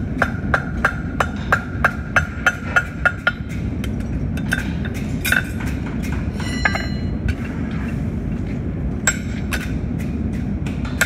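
Cross-peen hammer striking a hot steel horseshoe on the anvil horn to set the angle of the toe clip: a quick, even run of about three ringing blows a second for the first three seconds or so. This is followed by scattered metallic clinks of tools and the shoe on the anvil, then a few sharp taps near the end as a punch is worked through the shoe's nail holes.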